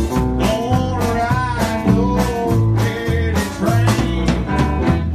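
Live band music: a guitar lead with bending notes over drum kit and bass, in a country-blues style.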